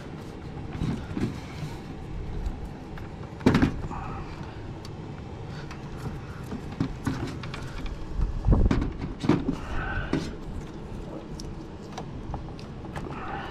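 Black electrical tape being pulled off the roll and wrapped around a ground-wire connection: rustling handling noise, with a few sharp knocks about three and a half, eight and a half and nine seconds in.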